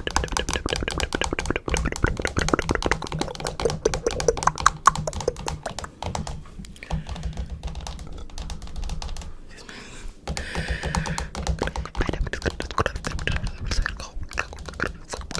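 Rapid, irregular clicking and tapping, like fingers typing on a keyboard, with a short lull about nine seconds in.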